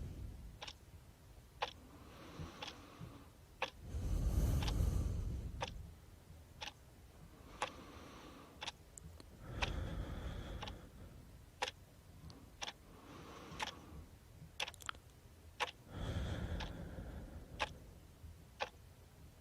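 Slow snoring, with three long snores about six seconds apart, over a clock ticking about once a second.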